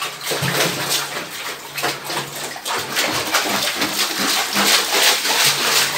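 Bare feet stamping in a plastic tub of soapy water: quick, irregular splashing and sloshing strokes, several a second.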